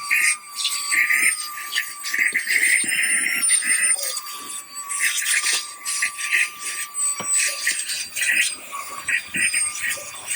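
Cordless handheld mini car vacuum running, a steady high motor whine that wavers slightly, with irregular rattling as sand and grit are sucked up through the nozzle.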